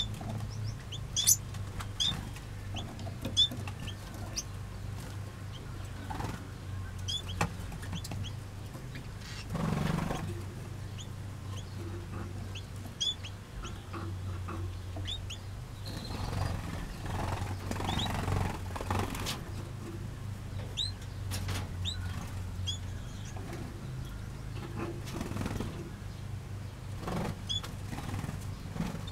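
Small aviary finches and waxbills chirping: short high chirps, one or a few every second or so, with occasional brief wing flutters, over a steady low hum.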